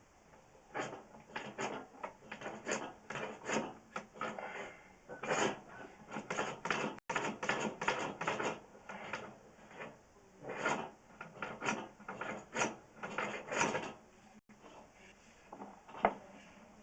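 Sewer inspection camera being pushed down a drain line: irregular scraping and knocking of the camera and its push rod against the pipe, a few per second, thinning out near the end.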